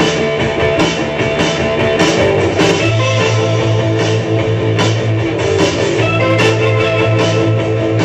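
Rock music with guitar and drums, a steady beat and held chords.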